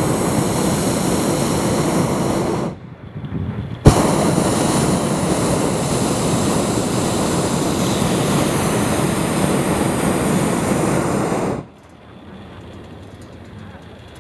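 Hot-air balloon's propane burner firing: a loud steady roar that cuts out about three seconds in, then fires again with a sharp start about a second later and runs for about eight seconds before stopping, leaving a much quieter background.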